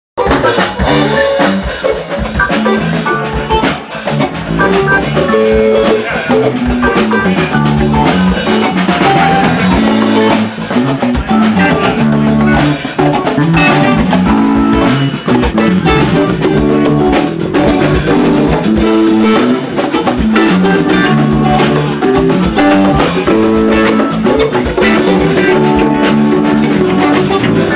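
Live band playing an instrumental passage: conga drums, electric guitar and drum kit over a moving bass line, with a steady beat.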